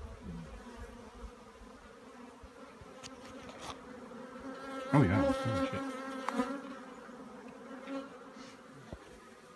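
Swarm of Africanized honey bees buzzing in flight, a steady hum of many bees. About five seconds in, one bee passes close and its buzz grows loud for a second or so, bending in pitch as it goes by.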